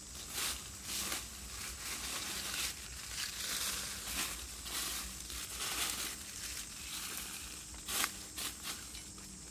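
Dry leaf litter and twigs rustling and crunching in irregular bursts as they are handled on the forest floor, with one sharper crack about eight seconds in.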